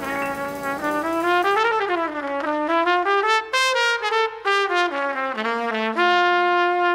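Jazz trumpet playing a flowing phrase of moving notes with little backing under it, settling on a long held note about six seconds in.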